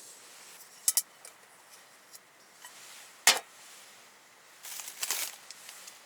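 A quick double click, then a single sharp knock, then a brief scraping rustle: small objects being handled.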